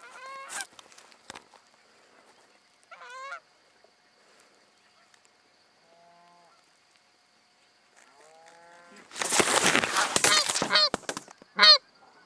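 Canada geese honking: a few scattered honks, then a loud stretch of many overlapping honks about nine seconds in, followed by single sharp honks near the end.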